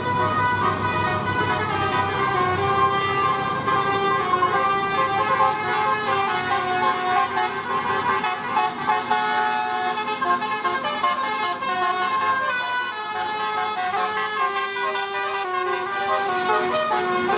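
Bus 'telolet' multi-tone air horn playing a tune: several horn notes sounding together and changing pitch in steps, without a break.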